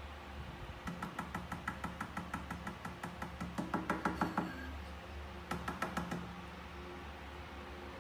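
Rapid, even, light taps on a glass tabletop, about seven a second. There is one long run, then a shorter run of taps a second later.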